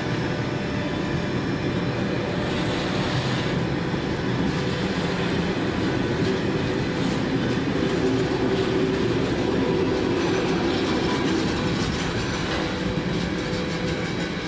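Freight train wagons rolling past on the rails: a steady, loud rolling noise of wheels on track that eases slightly near the end.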